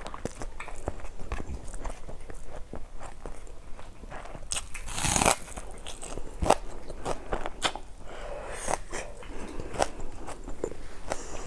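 Close-miked eating sounds: chewing with crisp crunches and many small clicks, and a louder crunchy burst about five seconds in.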